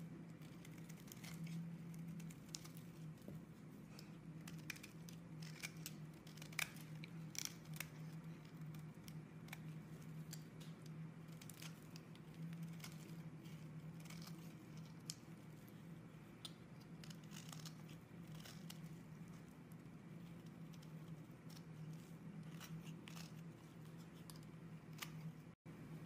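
A snap-off utility-knife blade shaving thin curls off a bar of soap: many short, crisp scraping crackles, over a steady low hum.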